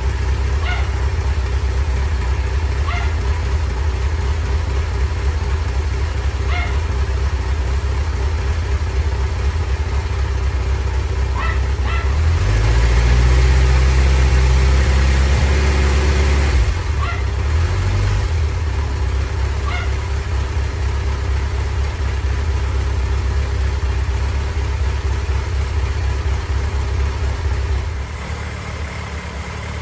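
Kawasaki Zephyr 1100's air-cooled inline-four engine idling steadily. About halfway through it is revved up and held for a few seconds, then drops back to idle, with a short blip of the throttle just after.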